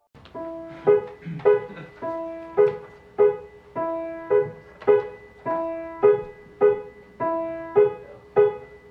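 Background music: a piano playing a repeating pattern of struck notes, about two a second.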